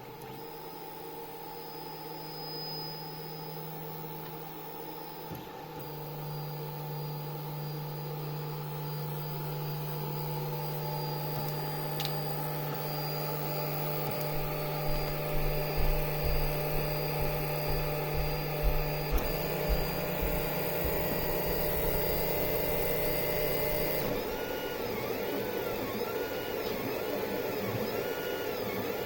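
LulzBot TAZ 5 3D printer running, with a steady mechanical hum whose pitch steps to a new level a few times. In the last few seconds the motors give a whine that swoops up and down over and over as the print head moves back and forth.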